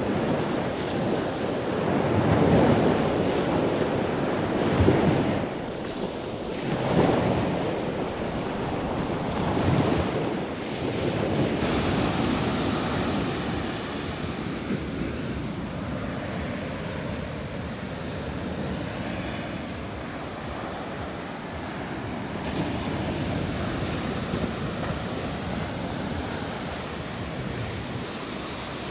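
Ocean surf breaking and washing up the beach, with wind rumbling on the phone's microphone. Several louder surges come in the first ten seconds, then a steadier wash.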